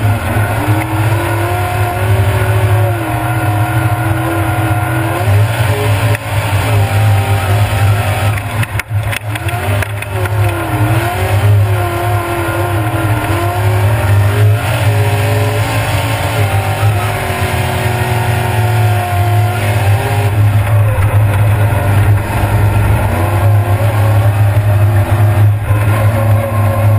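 A mud-bog car's engine revving up and down hard as it churns through a mud pit, heard from inside the cab. The revs drop briefly about nine seconds in, then climb again.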